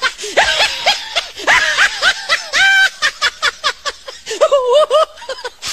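Children laughing hard: high-pitched laughter in quick repeated pulses, several strings of it with short breaks between.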